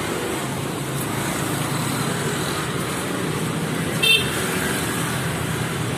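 Steady street traffic noise, with a brief, high-pitched ringing about four seconds in.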